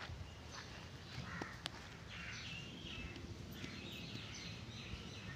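Crows cawing, a run of harsh calls in the second half, with one sharp click about one and a half seconds in.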